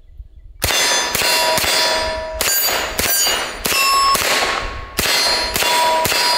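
Calico M950 9mm pistol firing about ten shots at roughly two a second, with a pause of about a second midway, each shot followed by the ringing of a struck steel target.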